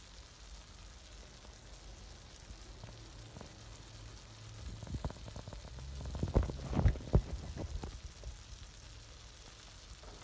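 Pan of chicken tagine sizzling quietly as it cooks, with a cluster of louder pops and knocks about five to eight seconds in.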